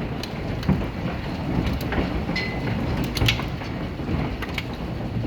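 Hailstorm: a steady rush of falling hail and rain, with irregular sharp clicks and knocks of hailstones striking hard surfaces.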